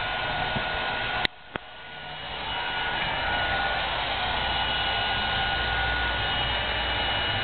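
Steady whirring noise with a thin high whine, like a motor-driven household appliance running. About a second in it cuts out with a click, then swells back up and runs on steadily.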